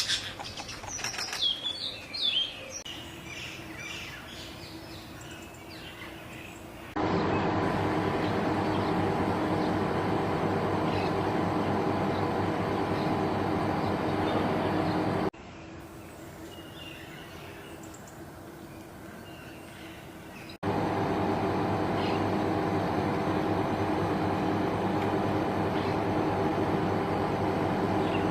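A few bird chirps in the first seconds, then a steady mechanical hum that starts and stops abruptly, running in two long stretches with a quieter gap between them.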